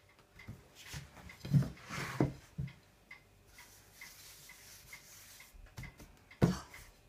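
Heavy hazelnut dough being kneaded and pressed by hand on a plate on a wooden table: dull thuds and knocks, the loudest about a second and a half in and again near the end. A faint, regular ticking runs underneath at about two ticks a second.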